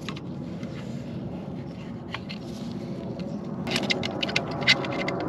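Metal clicks and clinks from about two-thirds of the way in as an open-end wrench works the oxygen sensor loose from the heat-wrapped exhaust pipe. A steady low rumble runs underneath.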